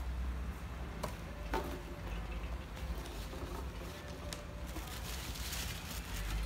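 Unpacking a cardboard gift box by hand: a ribbon pulled loose, cardboard flaps opened and packaging rustling, with a few light knocks and a stretch of rustling near the end, over a steady low hum.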